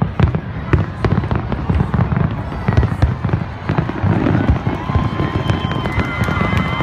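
Fireworks display going off in rapid succession: a dense stream of bangs and crackles over a continuous low rumble.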